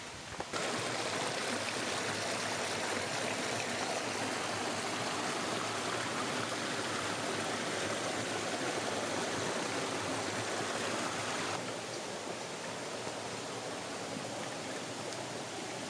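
Running water of a stream, a steady rushing hiss that starts abruptly about half a second in and drops a little in level near the end.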